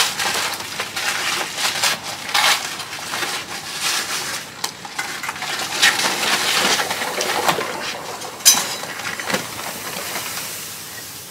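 Granulated sugar poured from a plastic bag into a plastic bucket of water: a continuous hiss of grains with the bag rustling and crinkling, and a sharp click about eight and a half seconds in.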